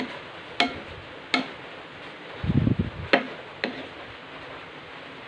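Wooden spatula tapping and scraping against a nonstick frying pan while cabbage is stirred: four sharp taps and a duller thump of the vegetables being turned partway through, over a steady faint hiss.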